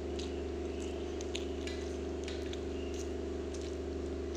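Steady low hum of room background noise, with a few faint clicks.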